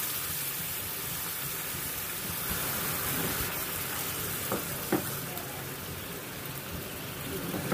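Caramelized sugar, thinned with a little water, sizzling and bubbling steadily in a nonstick pan while a silicone spatula stirs it; two light clicks of the spatula against the pan about four and a half and five seconds in.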